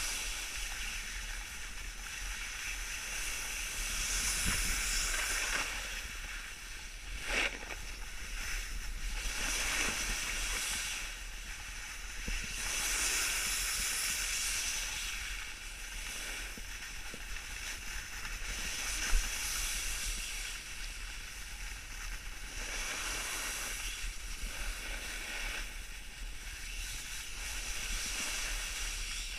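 Snowboard sliding down a groomed snow trail: a steady hiss of the base and edges on snow that swells into harsher scraping surges on the turns, twice strongly. A sharp click comes about 7 s in and a brief sharp knock near 19 s.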